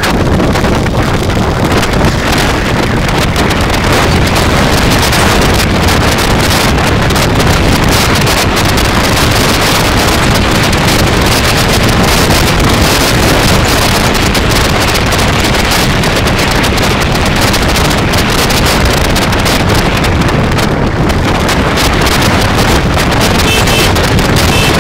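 Loud steady wind rushing over the microphone of a camera riding on a moving motorbike, with the road and traffic noise buried under it. A few short high beeps sound near the end.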